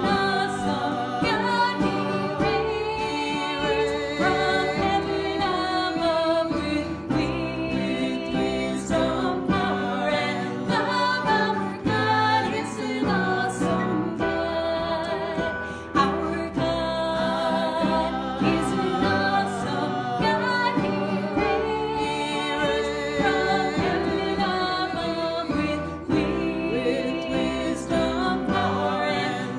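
Gospel worship song: voices singing over instrumental accompaniment, with sustained notes throughout.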